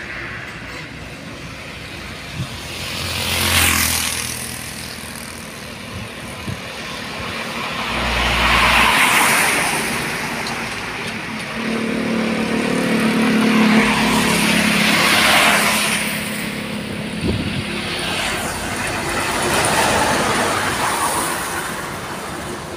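Road traffic passing close by on a wet road: about four vehicles go by one after another, each swelling and fading, with tyre hiss on the wet surface. During the longest pass in the middle, a heavy truck's engine drones underneath.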